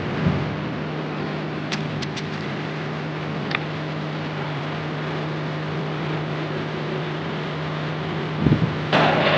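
A steady machine hum with a constant low tone, broken by a few sharp clicks about two seconds in and a knock and a louder rush near the end.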